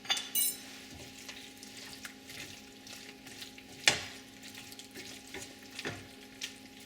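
A spoon stirring wet spinach and paneer in a pan over the heat, scraping and clicking against the pan while the mixture sizzles softly. A short metallic clink comes at the start and a sharp knock of the spoon about four seconds in.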